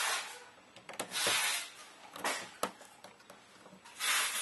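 Small Torx screwdriver turning the screws of a metal airsoft gearbox shell: a couple of sharp clicks, with soft hissing rushes in between.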